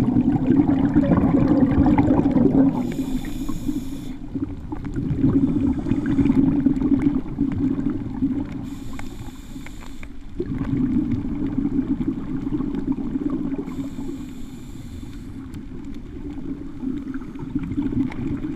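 Scuba diver's regulator breathing underwater: a short hissing inhale three times, about every five to six seconds, each followed by a longer gurgling rush of exhaled bubbles.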